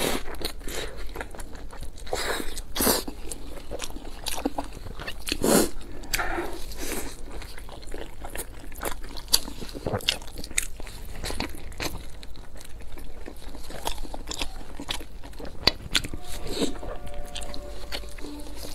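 Close-miked eating sounds of a large pan-fried dumpling being bitten and chewed: a steady run of small wet clicks and smacks, with a few louder bites about three and five and a half seconds in.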